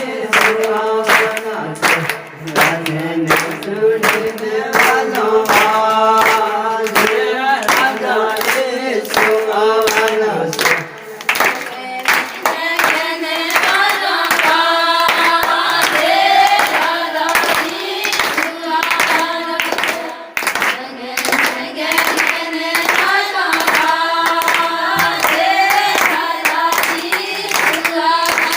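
A group of voices singing a song together to steady hand clapping, about two claps a second.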